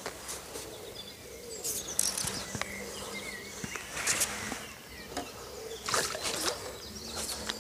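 A big hooked tench swirling and splashing at the water's surface in several short bursts while being played on a pole. Birds chirp in the background.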